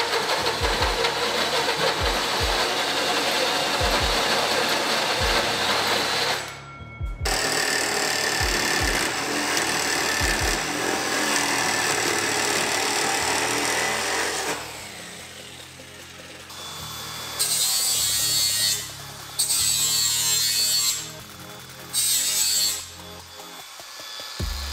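Power tools cutting aluminium diamond tread plate under background music with a steady beat. A cordless drill with a hole saw runs first, then a jigsaw cuts through the plate. An angle grinder comes in short repeated high-pitched bursts near the end.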